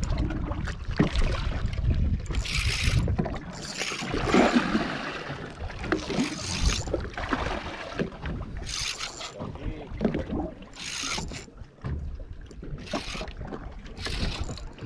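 Sounds on a small fishing boat at sea: water splashing and swishing against the hull in uneven surges every second or two, over the rumble of wind on the microphone.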